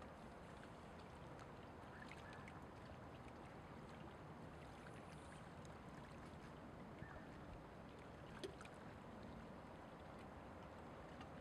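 Faint, near-silent waterside ambience: a low, even hum with soft water lapping, and a couple of faint ticks.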